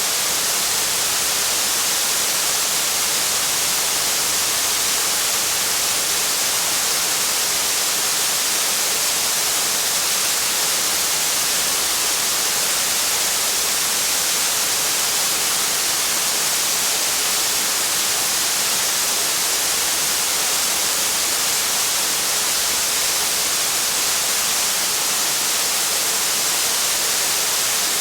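Heavy rain falling as a steady, dense hiss, even and unchanging throughout.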